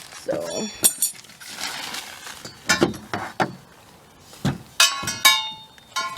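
Metal swing-set parts clinking and clanking together as they are handled, a few short ringing strikes with the loudest cluster about five seconds in.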